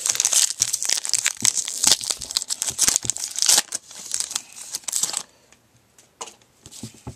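Plastic trading-card pack wrapper crinkling and tearing as it is ripped open by hand. The crinkling stops about five seconds in, leaving a few faint taps.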